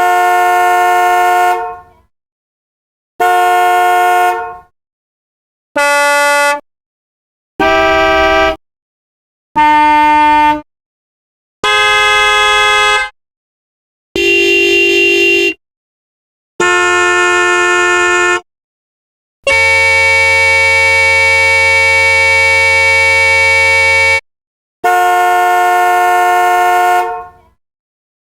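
Car horns sounding one after another, about ten separate honks that differ in pitch, mostly one to two seconds each, with dead silence between them. Near the end one horn is held for about five seconds.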